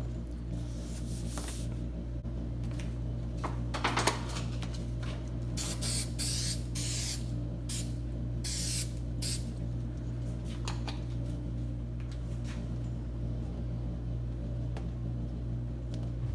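Several short hissing bursts over a steady low hum, from the vinyl being rubbed and pressed down onto a glued door panel.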